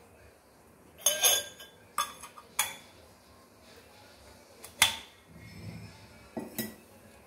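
Kitchen clatter: a series of sharp clinks and knocks of cookware and utensils, spread over several seconds, the loudest about five seconds in.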